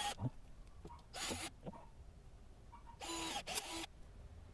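Cordless drill pre-drilling pilot holes in PVC pipe, run in several short trigger bursts, each rising in pitch as the motor spins up and falling as it stops.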